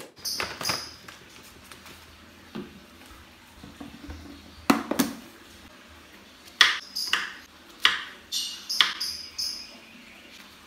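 Kitchen knife slicing strawberries on a wooden cutting board: irregular knocks of the blade striking the board, some in quick pairs.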